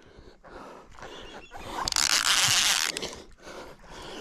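Handling noise of a fishing reel and rod being worked, with a jacket sleeve scraping against the microphone; an uneven rustle that swells loudest for about a second midway.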